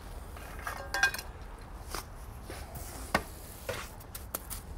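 Wet setting-bed mix of stone dust and Portland cement being scooped out of a wheelbarrow and worked with a trowel: gritty scraping and scuffing, with a sharp knock a little past three seconds.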